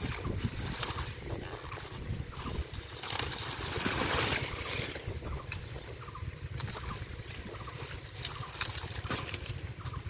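Hands splashing and squelching in shallow muddy water while pulling at water hyacinth, in irregular sloshes and small clicks, with a louder stretch of splashing about three to five seconds in.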